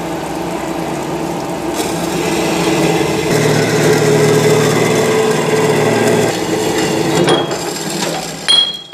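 Metal-cutting band saw running, its blade cutting through a steel pipe under flowing coolant: a steady machine noise with a held hum that gets louder about two to three seconds in. A short sharp knock comes near the end.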